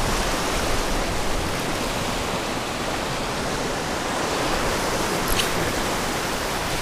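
Steady rush of ocean surf washing against a rocky shoreline, an even noise with no break.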